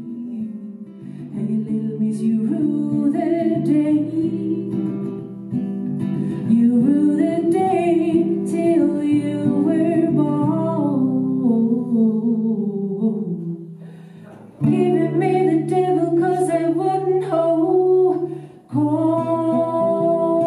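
A woman singing a song while strumming an acoustic guitar. The music falls away briefly twice, about two-thirds of the way through and again near the end, each time resuming with a strong strummed chord.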